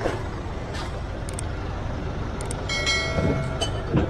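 Street-market and traffic noise with a steady low engine rumble, a few sharp clacks of goods and wood being handled, and a brief high-pitched tone that lasts about a second, starting near three seconds in.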